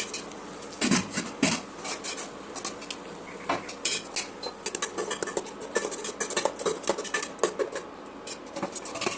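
Kitchen utensils clinking and scraping against dishes: a steady run of short clatters, the loudest about a second in and again half a second later.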